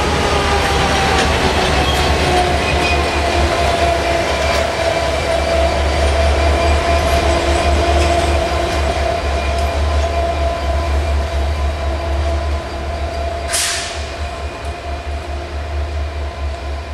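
A GM-engined CFR class 65 'Jimmy' diesel locomotive passing close and moving away: deep engine rumble with a steady whine that drops slightly in pitch at first. A short hiss comes about 13 seconds in, and the sound fades over the last few seconds.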